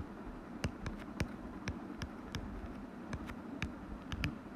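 Stylus tip tapping on a tablet's glass screen while handwriting: light, sharp clicks at irregular spacing, a few a second, over a faint steady background hum.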